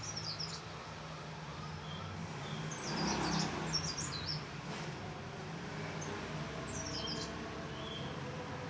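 Mountain leaf warbler (cikrak daun) singing: four short, high, quick runs of notes, each falling in pitch, over a steady low background hum.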